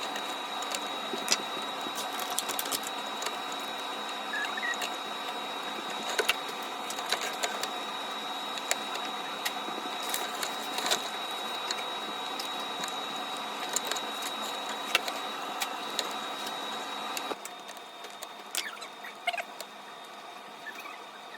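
Small, irregular clicks and scratches of plastic parts being handled as the tiny twist-in bulbs are swapped in an AC/heater control unit, over a steady background hum with a thin high whine that drops away about seventeen seconds in.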